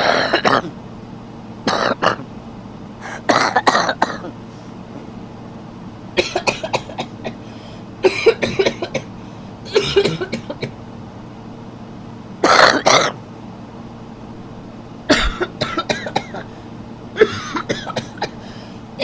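A man coughing over and over, in short bouts of coughs and throat clearing every couple of seconds, about nine in all, over a faint steady hum.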